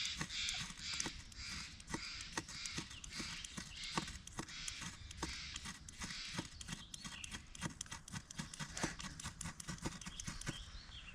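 Ferrocerium (ferro) rod being struck over and over to throw sparks onto tinder: an irregular run of short, sharp scrapes.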